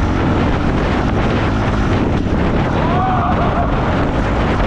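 ATV engine running under way while riding, with wind buffeting the microphone. About three seconds in, a brief wavering call or yell rises over the noise.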